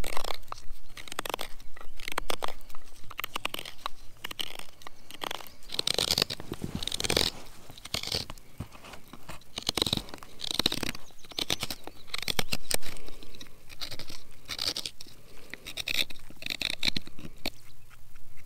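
Knife carving a small birch wood container: a run of short, irregular scraping and crunching cuts of the blade into the wood.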